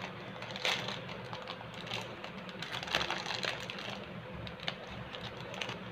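Rustling and irregular small clicks of a parcel's packaging being handled and opened by hand.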